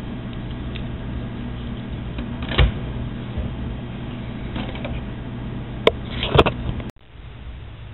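Handling noise: a few short knocks and clicks, one about two and a half seconds in and a cluster near six seconds, over a steady low hum that cuts off abruptly about seven seconds in.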